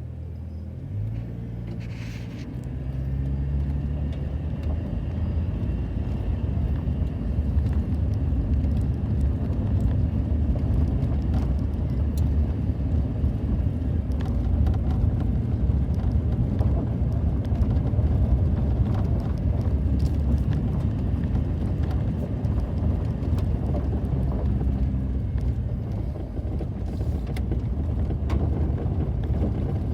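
A car driving along a road: steady engine and tyre rumble, picking up speed over the first few seconds and then holding steady.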